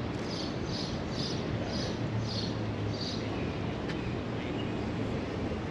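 Steady outdoor background noise with a low hum, and a short high chirp repeated about every half second, fading out after about three seconds.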